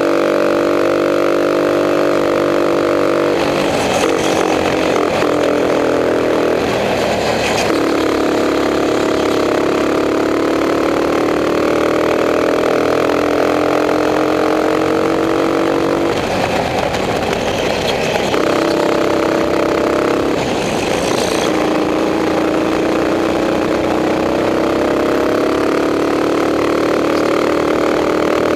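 Racing kart's engine at speed, its pitch climbing slowly along the straights and falling away a few times as it slows for corners, with short bursts of hissing noise at those moments.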